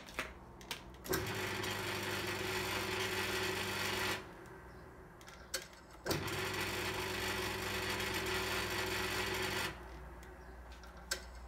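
Record Power CL3 wood lathe's electric motor switched on with a click and running with a steady hum for about three seconds, then stopping. About two seconds later it is switched on again with a click and runs for about three and a half seconds with the belt set for 425 rpm, then stops.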